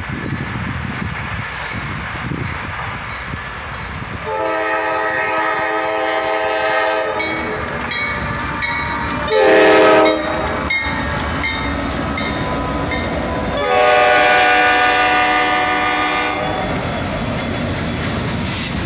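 Norfolk Southern freight train passing close, its lead AC44C6M locomotive sounding its horn over the rumble of the engines and rolling cars. The horn gives a long blast, then a short, louder blast as the locomotive goes by, then another long blast.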